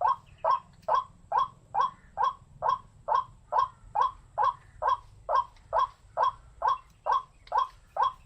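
White-breasted waterhen (the Malay 'wak-wak' bird) giving its harsh 'wak' call over and over in a steady, unbroken rhythm, a little more than two calls a second.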